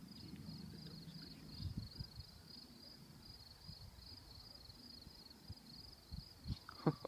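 Crickets chirping in a steady, even rhythm of high-pitched pulses, with no thunder to be heard.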